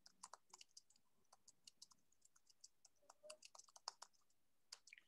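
Faint typing on a computer keyboard: irregular key clicks, several a second, coming in quick runs.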